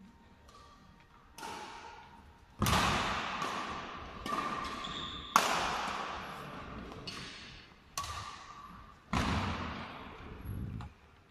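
Badminton rackets striking a shuttlecock in a doubles rally: about eight to ten sharp hits, roughly one a second, each followed by the long echo of a large sports hall.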